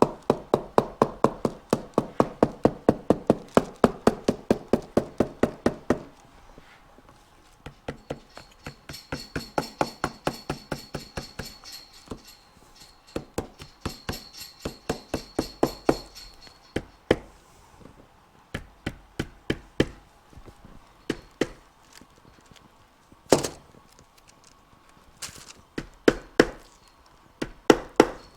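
Rapid series of sharp knocks or taps, about three a second at first, then in irregular runs with short pauses and a few louder single hits near the end.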